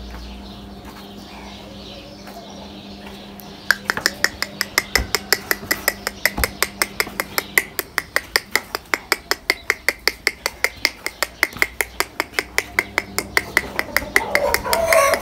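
Rapid, even knocking, about five strokes a second, starting about four seconds in, over a faint steady hum.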